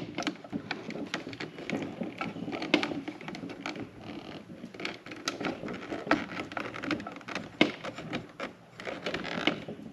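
Stiff 6-gauge THHN wire being worked by hand into the terminals of a metal 50 amp generator inlet box: a steady run of small clicks, scrapes and rustles of wire against the box.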